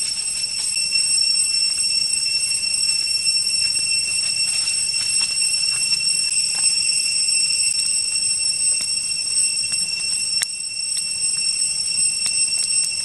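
Insects droning in a steady, shrill, continuous whine made of several high tones at once.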